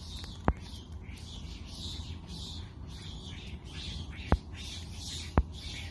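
Outdoor ambience of high, pulsing chirping from wild creatures, repeating about twice a second, over a low rumble. Three sharp clicks stand out, about half a second, four seconds and five seconds in.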